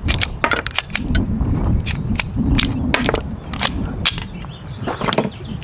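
Glock pistol being worked by hand: a run of sharp metallic clicks and clacks from its slide and action. The pistol is failing to cycle junk 9mm ammunition: backward-seated bullets, stubby rounds and odd hollow points.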